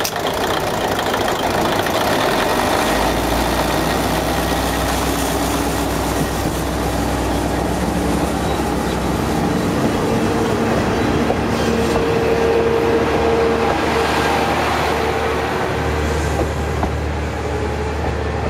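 A Japanese National Railways-type DMH17C straight-eight diesel railcar engine coming up from idle as the railcar pulls away. Its low drone swells about three seconds in, then carries on with the underfloor machinery and bogies running past.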